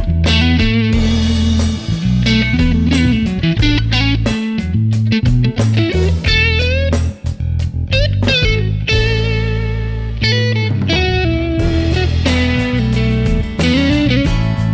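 Background music: electric guitar playing bending lead lines over a steady bass.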